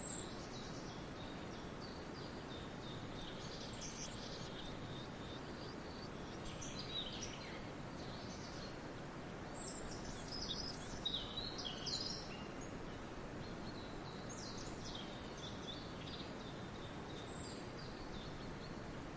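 Forest ambience: a steady hiss of background noise with songbirds chirping and trilling in bursts, busiest about halfway through.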